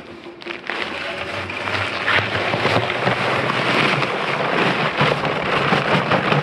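Dry Quikrete concrete mix pouring out of an 80-lb paper bag into a Harbor Freight drum cement mixer, a steady rushing hiss that builds about a second in, over the low hum of the mixer.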